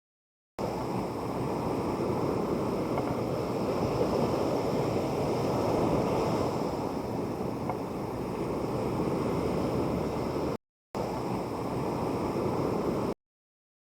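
Surf washing onto a small sandy beach, a steady rushing with wind on the microphone. The sound cuts out abruptly for a moment about ten and a half seconds in, then stops near the end.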